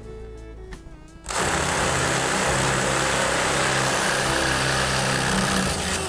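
Power drill boring a 3/8-inch hole through the metal lumber rack. It starts abruptly about a second in and runs steadily under load until the end.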